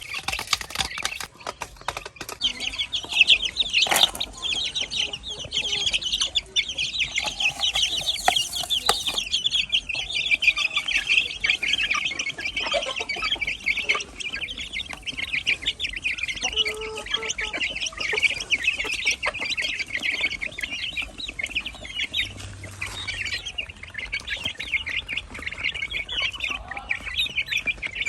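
A flock of chickens calling and clucking continuously, many high calls overlapping at once.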